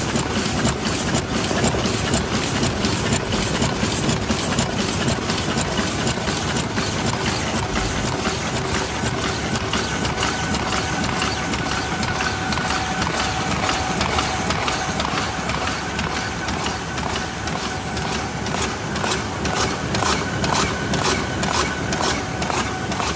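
Mingguo paper cup making machine running at production speed: a steady mechanical clatter of rapid, evenly repeating clicks over a constant running noise, with a faint steady whine.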